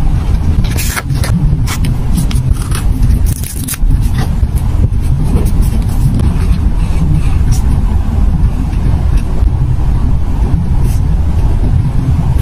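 Steady low rumble, with a run of short scratchy crackles during the first few seconds from paper being handled on the journal page.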